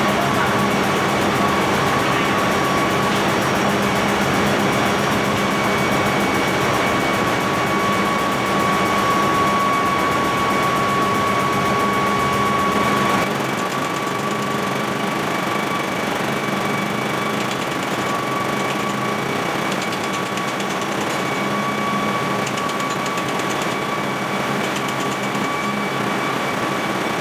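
Loud, steady ship's engine-room machinery noise: a dense hum with a high whine held on one pitch. About halfway through, the deep rumble drops out and the noise gets slightly quieter.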